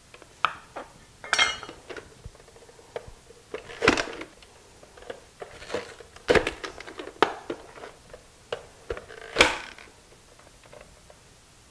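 A knife cutting potato on a wooden cutting board, and the plastic lid of a push-down vegetable dicer clacking as potato chunks are pressed through its blade grid. Irregular knocks and clicks, with a handful of louder ones spread through.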